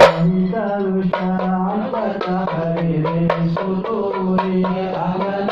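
A group of men singing a devotional chant over a steady low held note, with soft drum taps. It opens on a last loud drum stroke that ends a fast run of drumming.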